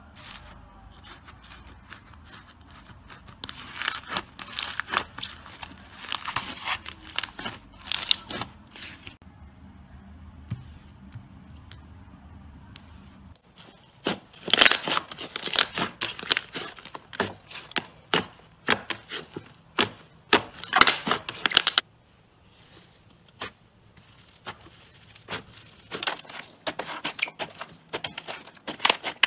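Slime being pressed, poked and squeezed by hand: bursts of sticky crackling and popping clicks, at first from foam beads worked into a clear slime, with short pauses between handfuls.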